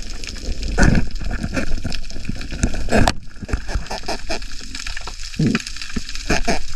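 Seawater sloshing and gurgling around a diver hunting lobsters at night, with irregular splashes and knocks, the loudest about a second in and again about three seconds in.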